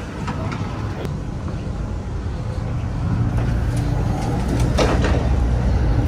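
Amtrak Acela train running noise heard from inside the cars: a steady low rumble that gets louder about halfway through, as the gangway between cars is reached. A few short knocks are heard along the way, one near five seconds in.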